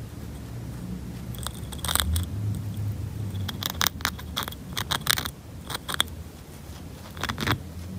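Chinchilla gnawing on a wooden chew stick: crisp, quick clicking crunches that come in several short bursts, over a steady low hum.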